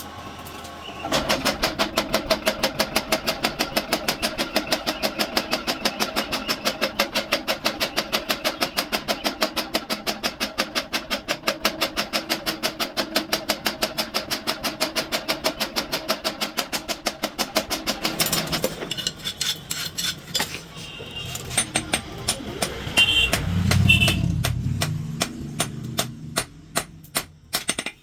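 Rapid, even metal-on-metal striking, several blows a second with a steady ring, from about a second in; after about 18 seconds the blows become slower and sparser.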